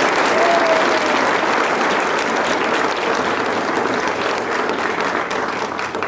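Audience applauding, dense and loud clapping from a full house at the end of a song.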